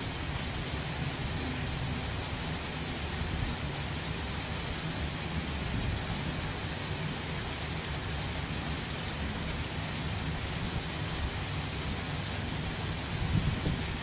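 Steady outdoor hiss with irregular low rumbling underneath and a faint steady high tone, with a few louder low bumps near the end.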